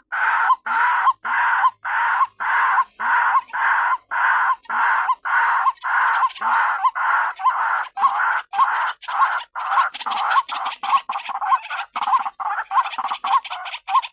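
Recorded lure call of a white-breasted waterhen, given as a female's call: a long series of harsh repeated notes, about two a second, that turn shorter and quicker about ten seconds in.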